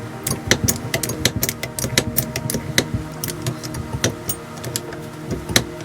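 Hydraulic trolley jack being pumped by hand after a rebuild with a new seal and fresh oil: a quick run of irregular metallic clicks and clacks from the pump mechanism, several a second, as the ram is pushed forward.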